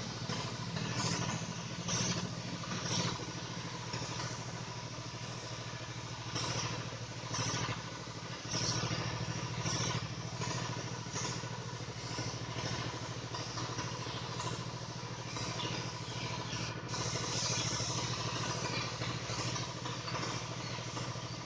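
Steady motor hum running throughout, with short hissing bursts at irregular intervals and a longer stretch of hiss near the end.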